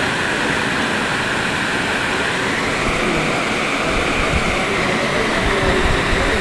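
Shallow, clear stream running over pebbles: a steady rush of flowing water, with a few low thumps in the second half.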